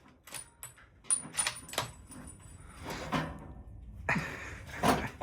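A series of sharp knocks and clicks, one about a second in followed by a brief high metallic ring, and another loud knock near the end.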